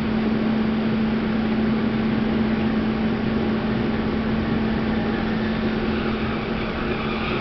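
Inside a moving NS Mat '64 stopping train: the steady running noise of wheels on track, with a constant low hum.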